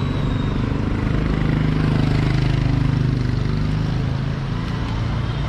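A motor vehicle's engine running close by, a low steady hum that swells to its loudest about two to three seconds in, then eases off.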